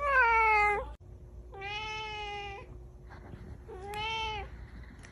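A domestic cat meowing three times, each call about a second long. The first is the loudest and falls in pitch; the next two are steadier and quieter.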